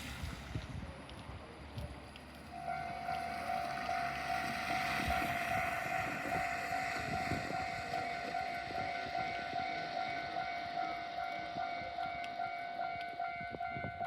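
Japanese level-crossing electronic alarm starting up about two and a half seconds in and ringing on steadily at a fast tempo over a low background rumble.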